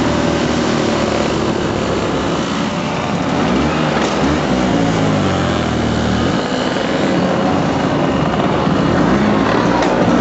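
Small two-stroke engines of several classic motor scooters running along together, heard from on board one of them; engine pitch rises and falls a few seconds in.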